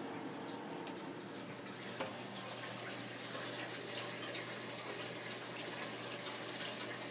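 Steady trickle and splash of water circulating in a 150-gallon aquarium, with a few faint clicks.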